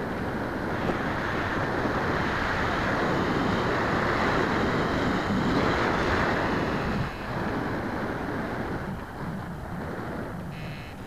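Airflow rushing over the microphone of a model plane's onboard camera in flight, a steady hiss of wind noise that swells over the first few seconds and eases off after about seven seconds. A faint high whine comes in near the end.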